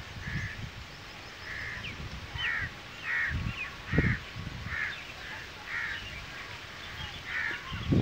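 Crows cawing, a string of about a dozen short caws, with gusts of wind rumbling on the microphone.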